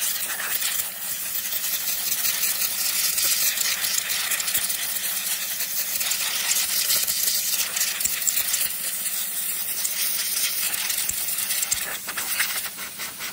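Compressed air hissing from an air-gun nozzle as it blows dust out of a nearly clogged tractor air filter element. The hiss wavers in level, with a short dip about a second in.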